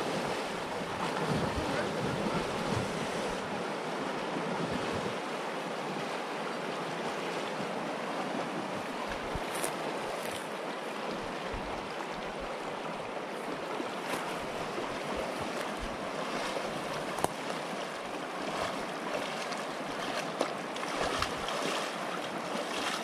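Fast-flowing river rushing steadily, with wind buffeting the microphone in gusts during the first few seconds.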